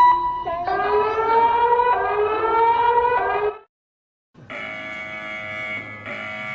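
Emergency alert alarm tones: a siren-like wail of several pitches rising slowly, cut off abruptly about three and a half seconds in. After a short silence, a steady, harsh multi-tone alert buzz starts and breaks briefly about a second and a half later.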